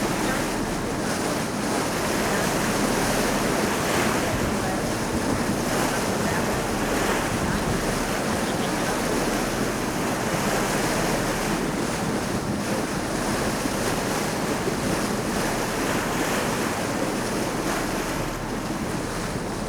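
Steady wind noise buffeting the microphone on a moving tour boat's deck, mixed with water rushing along the hull, over a low steady hum from the boat's engine.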